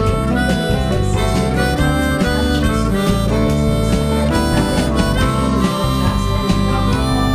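Background music with a steady beat, led by a harmonica-like melody over guitar.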